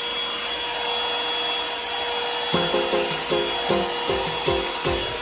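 Revlon One-Step dryer brush running with a steady blowing whine. About halfway through, electronic music with a quick, even beat starts over it.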